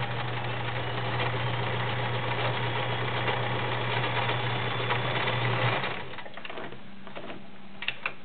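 Kenmore model 1931 convertible electric sewing machine sewing a straight stitch, running steadily and smoothly with its motor hum. It stops suddenly about six seconds in, and two sharp clicks follow near the end.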